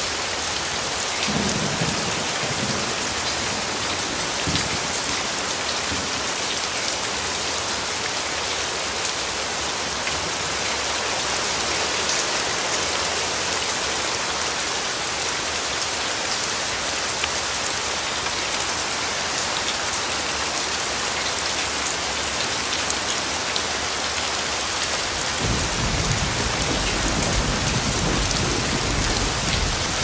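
Steady rain falling on wet ground, with brief low rumbles of thunder a couple of seconds in and a longer, sustained rumble of thunder in the last few seconds.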